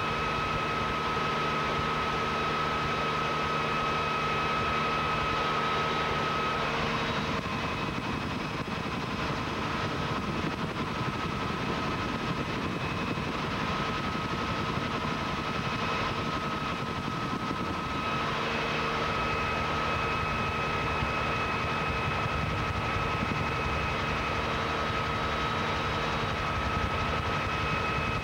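Helicopter in flight, heard from inside the cabin: a steady engine and rotor drone with a high whine over it. For about ten seconds in the middle the whine gives way to a rougher rushing noise, then returns.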